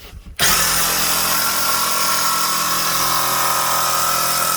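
Ryobi jigsaw running steadily, cutting through wood. It starts about half a second in.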